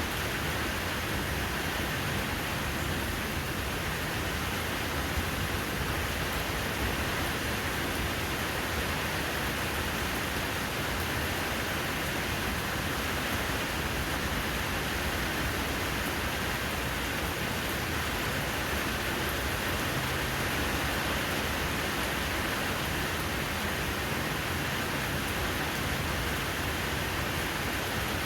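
Steady rain falling, an even hiss of rain hitting the ground and hard surfaces.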